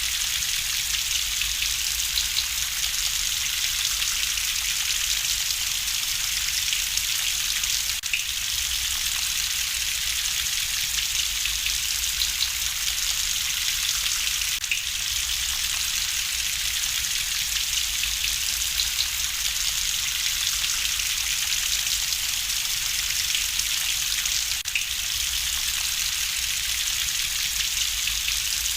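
Steady rain hiss with a low rumble underneath, mixed with a crackling wood fire giving occasional faint pops.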